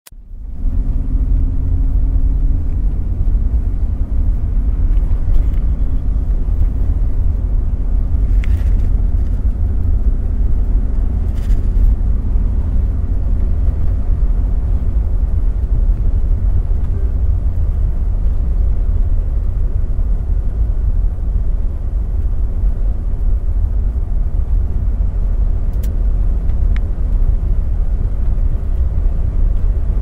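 Cabin noise inside a Boeing 737 jet airliner: a steady, deep rumble. A faint hum fades out about halfway through, and a few light clicks occur.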